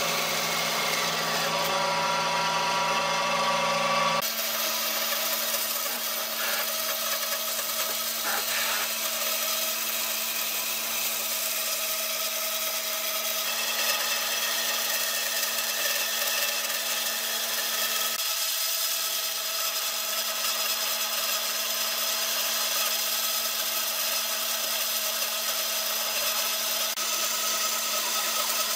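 An electric power tool running steadily while working wood, with an abrupt change in its sound about four seconds in.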